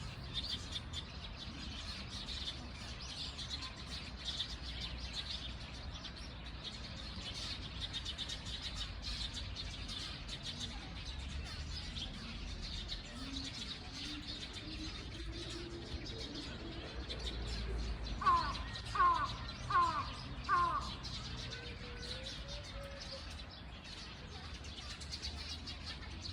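Birds chirping steadily in the background, with four loud, clear bird calls in quick succession a little past the middle.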